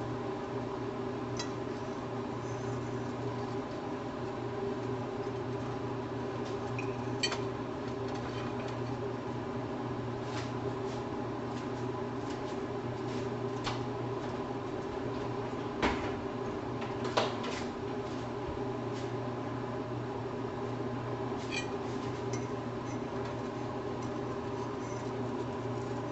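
Occasional clinks and knocks of a cooking utensil against a pan over a steady hum, with two louder knocks close together a little past the middle.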